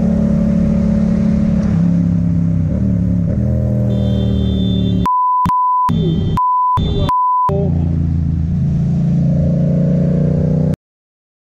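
A vehicle engine running steadily, interrupted about halfway through by three short censor bleeps, each a pure high beep with the other sound muted around it. The sound cuts off abruptly near the end.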